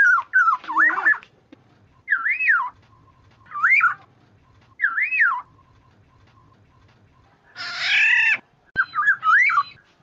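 Black-naped oriole (kepodang) calling. A quick run of fluty whistled notes opens, then come three separate swooping whistles that rise and fall, each about half a second long. About 8 s in there is one harsh, nasal call, followed near the end by another quick run of whistles.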